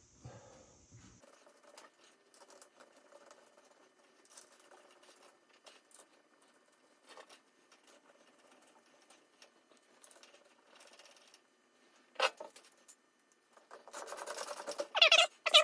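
Hand tools working on metal gearbox parts during reassembly: faint clicking and scraping, a sharp knock about twelve seconds in, then loud metallic squeaking near the end.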